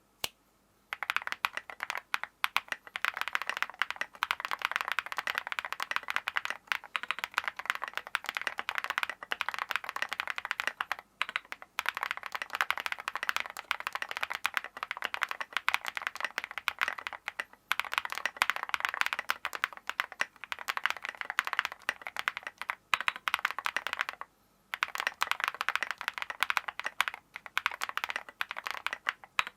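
Percent Studio Trio 75 custom mechanical keyboard typed on fast and continuously, a dense run of key clicks with a few short pauses. The board is in its stock state, without the tape mod on its PCB.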